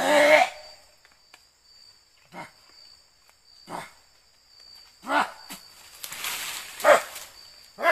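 A man making harsh, guttural growls: one long, loud growl at the start, then about five short ones a second or so apart. A steady high trill of night insects runs underneath.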